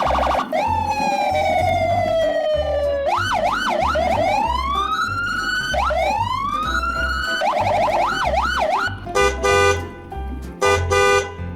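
Siren wailing in long rising and falling sweeps, switching twice to a fast yelp, over background music with a steady beat. Near the end come two short, loud blasts of a steady chord.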